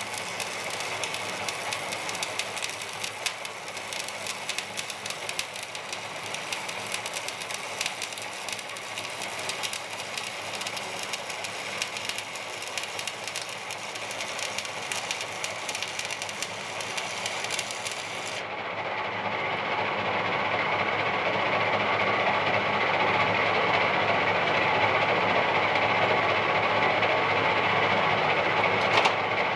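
Electric welding arc crackling and hissing steadily; about two-thirds of the way through the sound changes abruptly to a louder, duller hiss.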